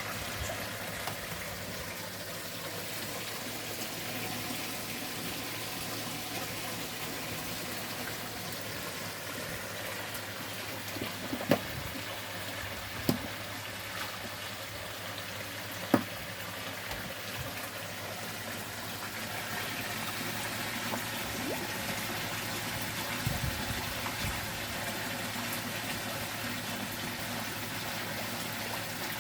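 Koi pond water running steadily, a continuous trickling and splashing of flowing water, with three brief sharp clicks in the middle.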